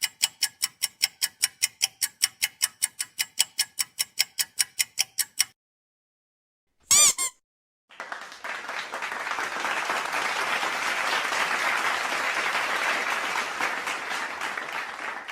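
Three sound effects in turn: rapid ticking, about five ticks a second, for the first five seconds; a brief warbling chirp about seven seconds in; then applause that swells and slowly fades over the last eight seconds.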